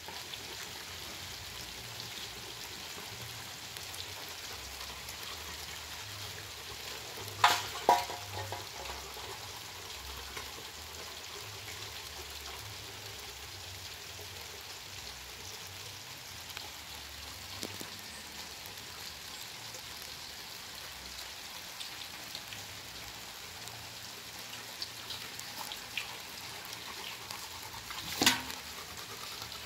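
Steady rain pattering on a concrete yard, an even hiss. Two short loud sounds come about seven and a half seconds in, and another near the end.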